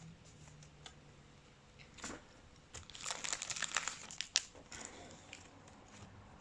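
Plastic trading-card packaging crinkling and crackling as it is handled, with a brief rustle about two seconds in, a denser burst of crinkling from about three seconds, and a sharp snap near the end of it.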